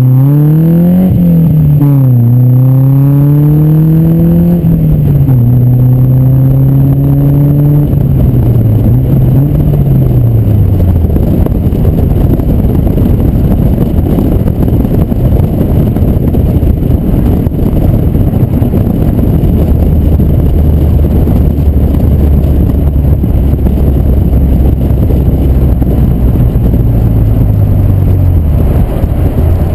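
Car engine accelerating through the gears, its pitch climbing and dropping back at each shift for the first several seconds, then a loud steady rush of wind and road noise at speed over a low engine hum. The wind is heard on the microphone of a suction-cup-mounted GoPro HERO2 in an open-back housing with plugs over its buttons.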